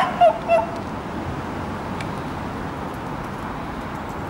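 A small dog yipping three times in quick succession within the first second, then only steady background noise.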